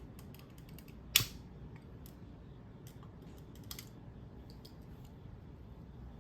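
Scattered faint clicks and taps over low room noise, with one sharp, louder click about a second in.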